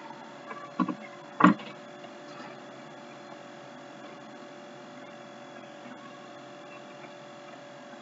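Steady electrical hum in the recording's background, with two short knocks about one and one-and-a-half seconds in.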